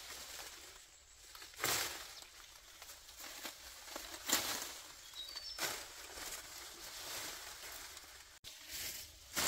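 Irregular rustling, scraping swishes a couple of seconds apart, with a short run of faint high chirps about five seconds in.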